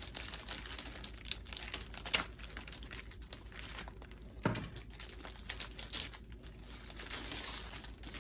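Plastic packaging crinkling and tearing as a hard drive is unwrapped, in irregular crackles, with one sharper knock about halfway through.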